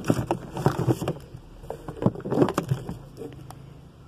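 Paper and packaging rustling, with small knocks, as hands rummage through products in a cardboard box; it quiets down about three seconds in.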